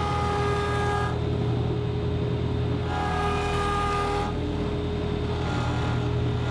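Ambient synth music: a steady low drone under held chords that change every second or two.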